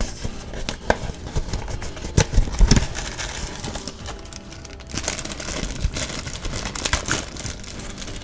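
A small cardboard blind box being opened and a black foil blind bag being handled, crinkling and rustling with scattered clicks and taps.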